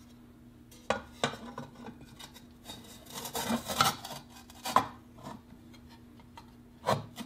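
Handling noises as a shiny reflector is fitted into a yellow pedestrian-signal housing: light scraping and rubbing of the reflector against the housing, with several sharp clicks and taps, the loudest about a second in, near the middle and near the end.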